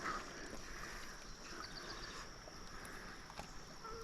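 Quiet riverside ambience: soft lapping water under a steady, high insect drone, with a few faint clicks.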